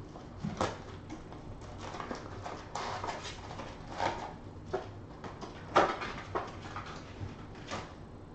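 Foil-wrapped trading card packs being pulled out of a cardboard Panini Prizm box and set down: crinkling foil and cardboard scraping in irregular bursts, the sharpest about six seconds in.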